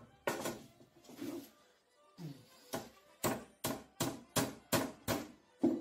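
A hammer striking a metal drum hoop on a wooden workbench: about ten sharp blows, settling into an even beat of nearly three a second in the second half.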